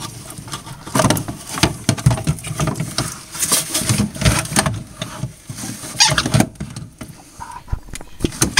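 Close-up rustling, scraping and irregular small clicks and knocks of hands handling the wiring harness and plastic connectors of a freezer's evaporator fan, with a sweatshirt sleeve brushing near the microphone.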